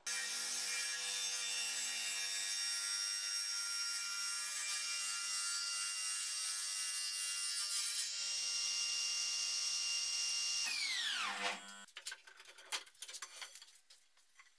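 Homemade table saw running, its blade driven by the motor unit from a Scheppach chop saw: a steady whine with many tones. About eleven seconds in it is switched off and the whine falls away as the blade spins down. A few light clicks follow.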